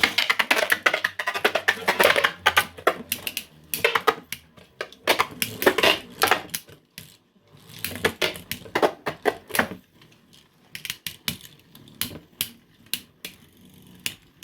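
Two 3D-printed Beyblade spinning tops clashing and rattling around the stadium: rapid, irregular clicks and knocks that thin out to scattered hits in the last few seconds.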